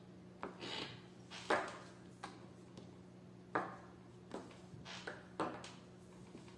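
Plastic chess pieces set down and knocked against each other on a board on a wooden table during a quick exchange of moves, a series of about eight sharp clacks, over a steady low hum.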